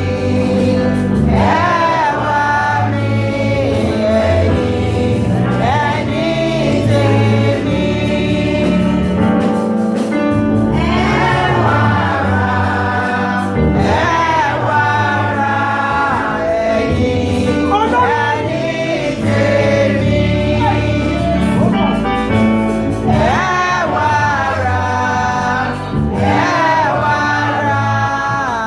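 Choir singing a gospel hymn over a steady instrumental accompaniment.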